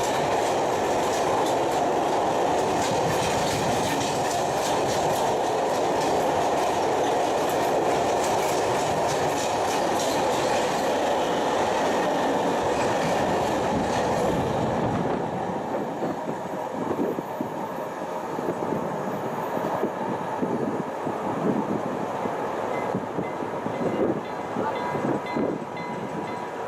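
Freight train wagons rolling past on the rails with a steady clatter of wheels over the track. About halfway through the sound gets quieter and breaks into separate knocks and clanks.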